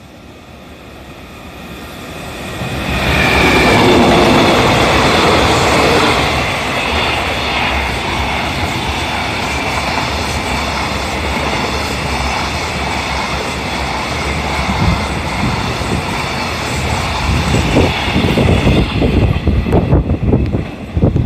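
Freight train hauled by an EF210 electric locomotive passing through a station, growing louder as it approaches and then a long steady rumble of container flat wagons running by on the rails. Near the end the sound turns uneven as the last wagons pull away.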